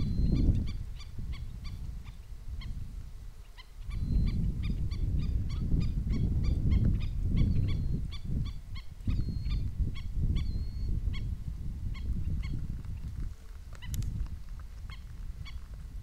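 Wind gusting on the microphone in surges, with a fast string of short, repeated bird calls, about three a second, over the top.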